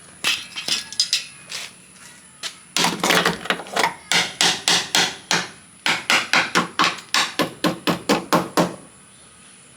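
Hammer blows on a car door hinge being knocked loose. A few scattered hits come first, then two quick runs of about four sharp strikes a second, with a brief pause between them.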